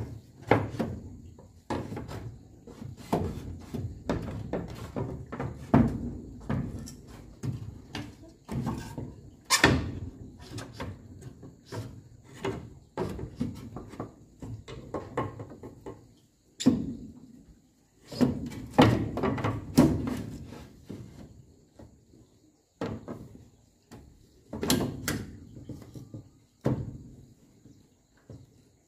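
Thin wooden boards knocking, bumping and scraping against a wooden frame as they are pushed into place by hand, in irregular knocks and rubbing scrapes with a few sharper knocks.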